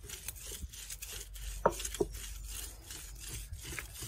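Granite roller of an ammi grinding stone worked over the granite slab, crushing a wet spice and tomato paste: repeated soft rasping strokes of stone on stone, with two sharper knocks near the middle.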